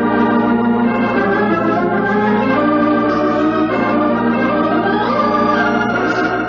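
Organ music playing held chords that shift every second or two: the musical bridge marking a scene change in an old-time radio drama.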